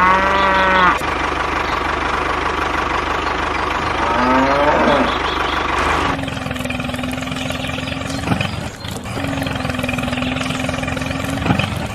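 An engine runs steadily with two pitched, honking calls: a level one about a second long at the start and a rising one about four seconds in. About six seconds in, the sound switches abruptly to a steady droning hum, which dips briefly twice.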